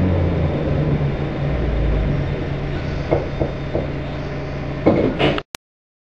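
London Underground D stock train running at low speed, heard from inside the carriage: a steady low hum and rumble. There are a few light knocks about three seconds in and louder knocks near the end, then the sound cuts off abruptly.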